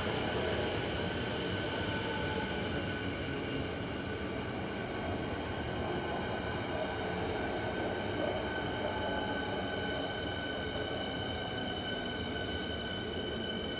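Suburban electric train at a station platform: a steady rumble with a high electrical whine held at two even pitches, and a faint falling tone near the start.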